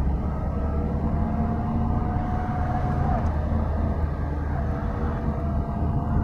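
Car engine and road rumble heard from inside the cabin while driving in traffic. The engine note climbs slowly, drops briefly about three seconds in, then climbs again.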